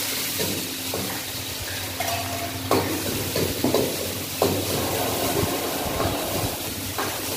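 Food frying and sizzling in a pan, with a metal spatula stirring and knocking against the pan several times.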